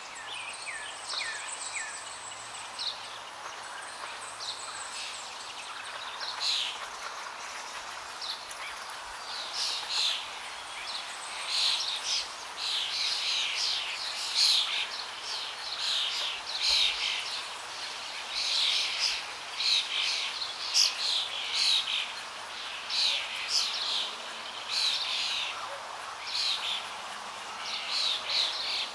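Birds chirping: many short, high chirps, sparse at first, then busier and louder from about a third of the way in.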